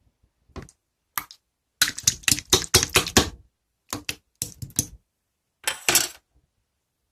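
Slime being squeezed and pressed by hand, giving bursts of crackling clicks and pops, with the longest run of clicks about two seconds in and shorter bursts after.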